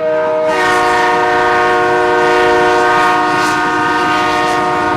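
Train horn sounding one long, loud chord of several steady notes that starts abruptly and holds for about five seconds.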